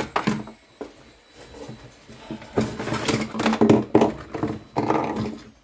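Plastic waste-pipe fittings clattering and rustling in a cardboard box as hands rummage through them, busiest in the second half.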